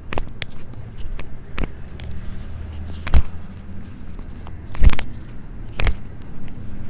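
Hands-on chiropractic treatment on a treatment table: five sharp knocks, roughly one to one and a half seconds apart, the loudest two in the middle, over a low steady hum.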